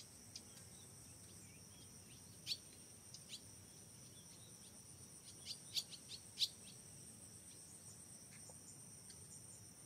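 Steady high-pitched insect chorus of crickets or cicadas, with scattered short bird chirps and a quick run of louder chirps a little past the middle.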